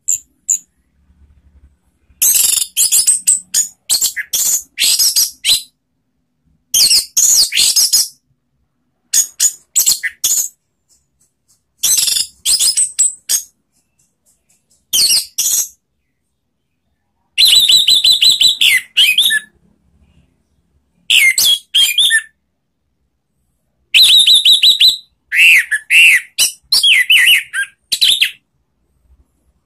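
Orange-headed thrush (anis merah) singing loud, varied whistled song packed with mimicked phrases. The song comes in about eight bursts of one to five seconds, with short silent pauses between them.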